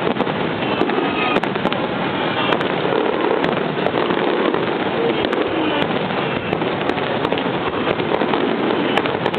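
A starmine fireworks barrage: rapid shells bursting one on another in a continuous, dense rumble of booms and sharp cracks, with no gaps.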